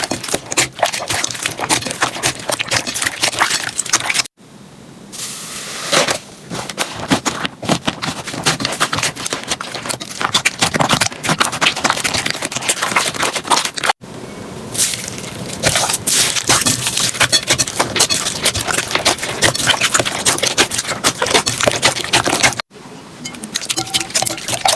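Slime being pressed, squeezed and poked by hands, giving dense crackling and popping, in a series of clips joined by abrupt cuts.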